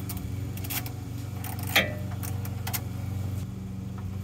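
Irregular metallic clicks and clinks of a ratchet and socket working the oil drain plug, with one louder clank nearly two seconds in. A steady low hum runs underneath.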